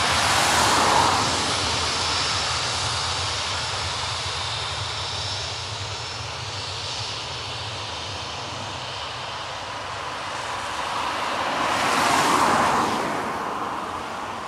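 A British Airways Boeing 737-400's CFM56 turbofan engines at takeoff power as the jet rolls away down the runway, the roar slowly fading with distance. A brief rushing swell rises and falls about twelve seconds in.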